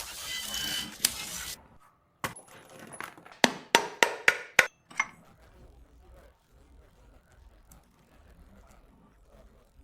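A loud hissing whir with a faint steady whine that stops after about a second and a half, then a quick run of sharp metallic clinks, like tools or small metal parts being handled during gearbox work, then only faint background noise.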